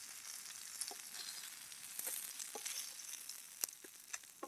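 Murrel fish slices frying in oil on a dosa tawa: a steady sizzle with scattered crackles, and a few sharper clicks in the last second or so.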